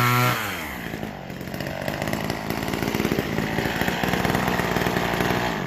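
McCulloch Mini Mac 120 two-stroke chainsaw revving high, then dropping back in pitch a moment in. It runs lower and unevenly while cutting into a pumpkin, and winds down near the end.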